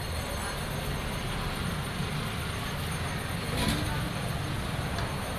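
Steady traffic noise with a low engine rumble, and a brief sharp sound about three and a half seconds in.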